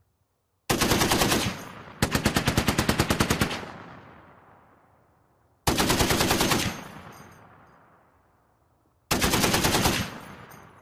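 Browning M2 .50-calibre heavy machine gun firing four short bursts, the first about a second in, at about eight rounds a second. Each burst cuts off sharply and its report echoes away before the next.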